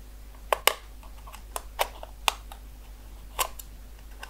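Sharp plastic clicks, about six spread over a few seconds and the loudest near the start, as a thin pry tool works along the seam of a TP-Link XZ000-G3 GPON ONT's plastic case and its snap-fit clips click loose.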